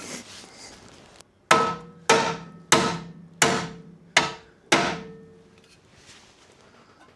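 Six hammer blows on the steel radiator support cradle of a car, about two-thirds of a second apart, each leaving a short metallic ring. The cradle is being knocked over by about a millimetre to line it up.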